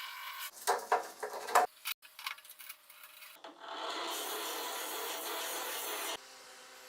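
Vintage hand grinder in use: a few short scraping rubs, then a steady grinding rasp for about three seconds that cuts off suddenly.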